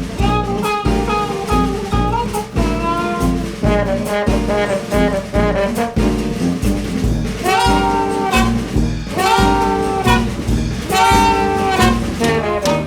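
Upbeat jazzy background music with saxophone and brass over a steady beat, with long held horn phrases in its second half.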